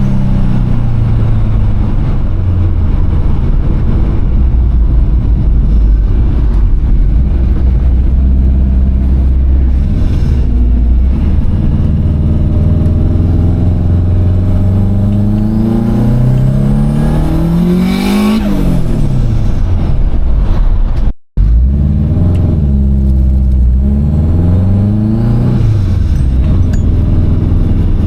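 Turbocharged Subaru WRX flat-four engine under way, with no blow-off valve and a 3-inch intake pipe fitted straight off the turbo. The revs climb for a few seconds, drop away about two-thirds of the way in, then rise and fall again near the end. On each lift-off the trapped boost is meant to give turbo flutter.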